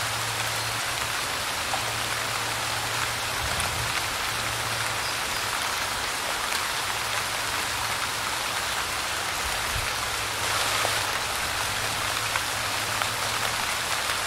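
Light rain falling steadily, an even hiss of drops with occasional single drops ticking out, growing slightly louder for about half a second around ten seconds in.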